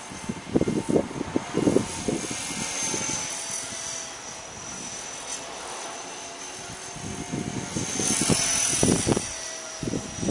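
Blade 300X electric RC helicopter in flight: a steady high whine from its motor and rotor that dips and rises as it maneuvers. Gusts of strong wind buffet the microphone in irregular low bursts.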